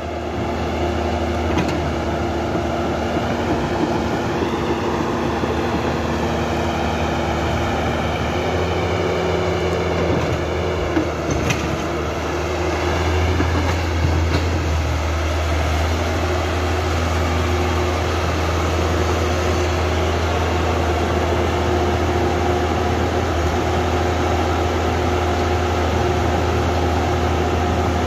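Remote-control toy excavator at work: a steady motor drone with a low hum, and gear whines that waver up and down as the arm moves. The hum grows stronger from about halfway.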